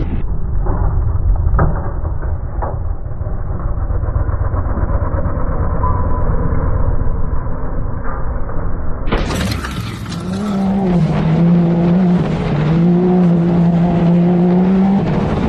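Off-road vehicle noise: a muffled rumble with a few sharp knocks in the first seconds. About nine seconds in, it gives way to a clearer engine revving and holding a steady pitch for several seconds, dipping slightly once or twice.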